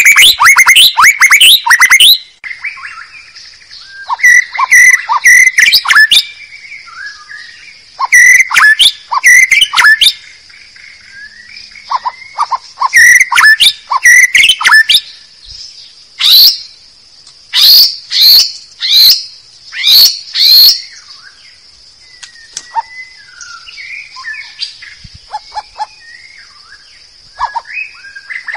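White-rumped shama (murai batu) singing a lure (pikat) call: loud phrases of rapid chirps and whistles lasting one to three seconds, with short pauses between them and softer phrases near the end. A steady high-pitched hiss runs underneath.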